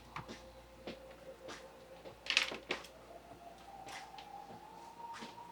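Scattered light clicks and taps of tools being handled on an electronics repair bench, with a louder cluster about two and a half seconds in. Under them a faint tone slowly rises in pitch in the second half.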